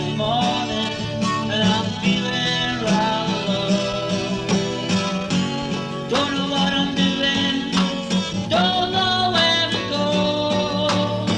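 Guitar-led band recording: guitars over bass and drums with a steady beat.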